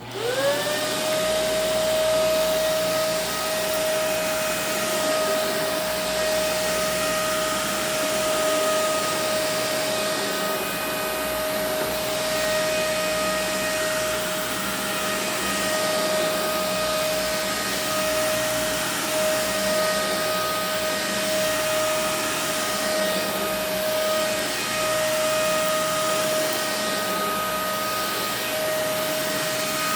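Kenmore Intuition upright vacuum cleaner switched on: the motor spins up within the first second to a steady whine over a rush of air, then runs steadily.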